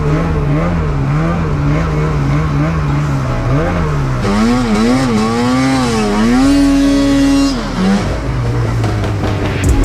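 Snowmobile engine running under changing throttle, its pitch wavering, then revving higher about four seconds in and dropping back near the end.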